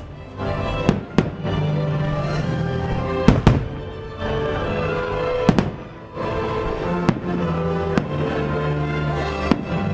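Aerial fireworks shells bursting in about eight sharp bangs, some in quick pairs, over steadily playing show music.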